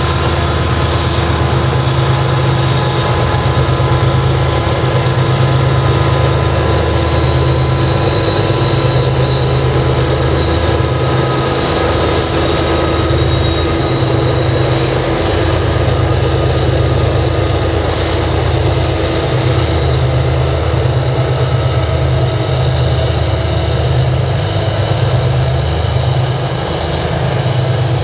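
A coal train passes with a GE diesel locomotive working, making a steady whine of several held tones. Under the whine are the low, pulsing drone of the engine and the rolling of the loaded coal cars.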